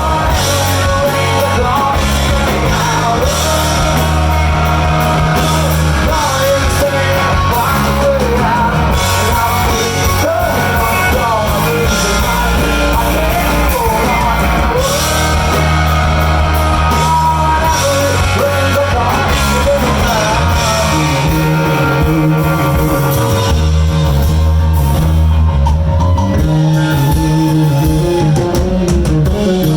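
Rock band playing live: electric guitar, bass and drum kit, with singing.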